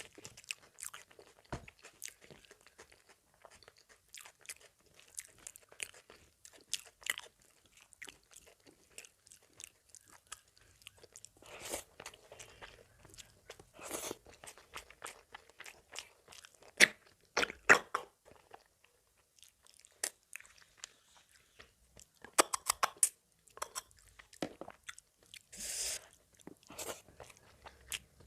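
A person eating mutton with rice: chewing and biting with irregular crunches and mouth sounds, the loudest bites coming about 17 to 18 seconds in.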